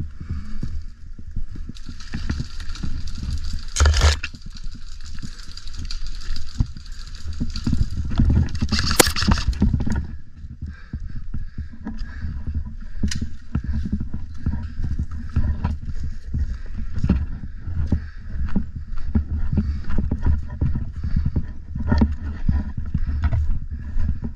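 Footsteps and gear rustle of a person walking over dry leaves and concrete, under a steady wind rumble on the microphone. There is a sharp knock about 4 seconds in and a louder noisy stretch around 9 seconds.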